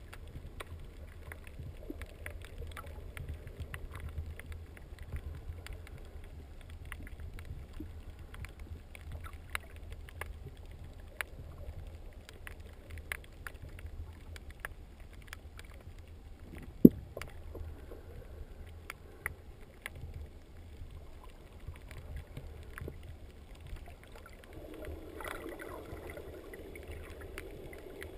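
Underwater sound heard through a GoPro's sealed housing: a muffled low rumble of moving water, with scattered sharp clicks and crackles throughout. One louder knock comes about seventeen seconds in, and the rushing rises briefly near the end.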